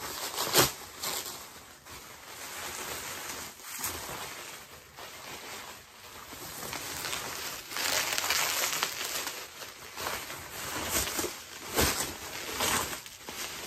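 Shipping packaging being handled and pulled apart: crinkling and rustling in uneven bouts, with a sharp crackle about half a second in and another near the end.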